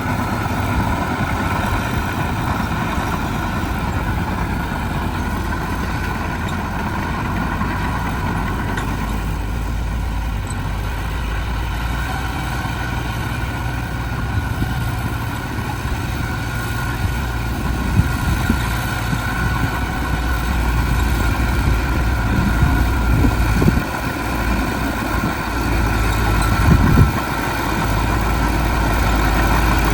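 Heavy diesel machinery running steadily with a deep engine rumble that grows a little louder in the second half, broken by a few short knocks.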